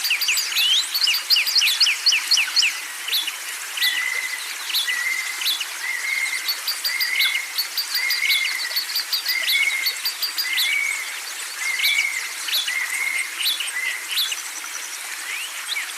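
Several songbirds calling over one another. Rapid high chirps and sweeping whistles come first, then from about four seconds in one bird repeats a short arched whistle roughly once a second for about ten seconds, with quick sharp chirps in between.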